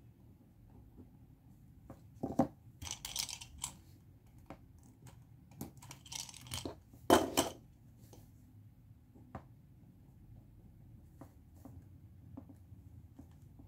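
Paper workbook pages rustling and crackling as they are handled and turned, in two bursts about two and six seconds in, the second ending in the loudest crackle.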